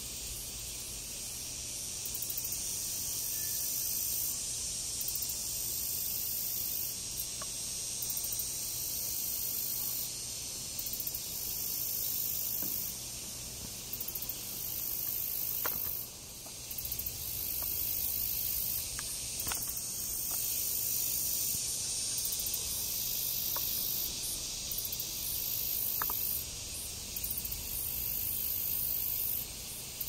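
Steady high-pitched drone of insects chirring, with a pulsing edge at the top, and a few faint ticks here and there.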